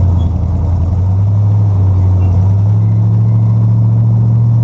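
Pure stock race car's V8 engine running steadily at low revs, heard from inside the caged cabin: a loud, even drone that creeps slightly up in pitch.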